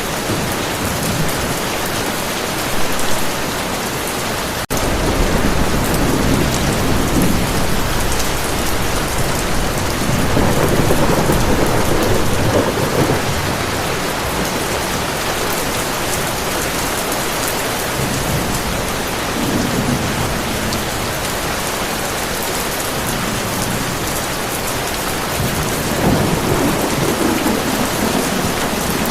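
Steady heavy rain with thunder rolling in low rumbles, the longest starting about five seconds in and more rumbles later and near the end. A split-second dropout in the sound comes just before the first rumble.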